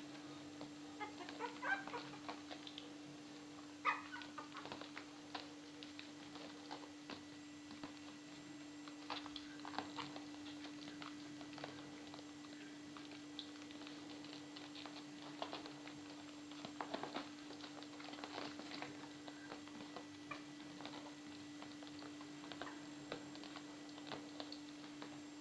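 Russian toy terrier puppies eating: scattered small clicks, smacks and chewing sounds, with a couple of short squeaks near the start, over a steady low hum.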